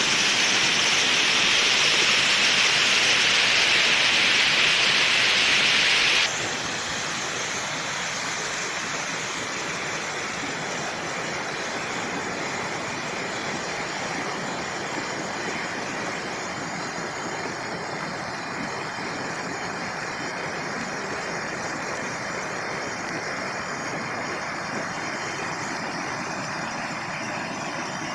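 Waterfall rushing steadily. About six seconds in it cuts abruptly to a somewhat quieter, duller rush of the same water.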